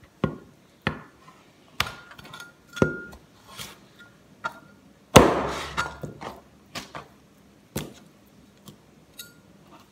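Steel cleaver chopping raw chicken on a cutting board: about a dozen uneven, sharp strikes, roughly one or two a second, some with a short metallic ring. The hardest blow comes about five seconds in.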